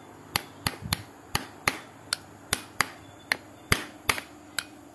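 Hammer taps driving a new centre support bearing (long shaft mounting) onto the propeller shaft: a run of sharp strikes, about two to three a second, irregularly spaced.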